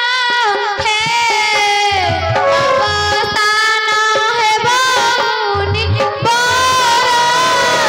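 Stage music of a sung drama: one voice holding a long, wavering melody over drum strokes that come in short clusters.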